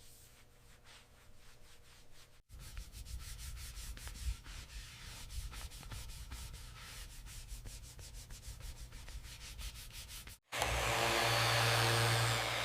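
Sanding on a metal surface: quick, repeated strokes after a faint start. Near the end, after a sudden cut, a much louder steady machine hum takes over.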